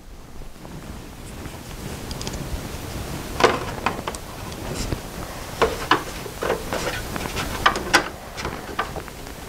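Scattered light clicks and knocks of a hand tool and parts being handled while refitting the plastic gas tank on a Toro S200 snowblower.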